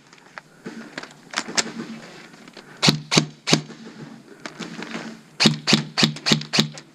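Airsoft guns firing: sharp cracks, a few spaced shots in the first half, then a quicker string of about six shots near the end.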